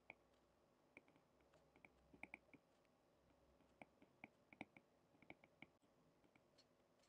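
Near silence broken by faint, irregular clicks of a stylus tapping on a tablet screen while handwriting, about a dozen of them over several seconds.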